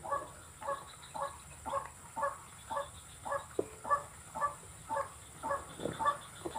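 White-breasted waterhen calling: a steady run of repeated harsh notes, about two a second.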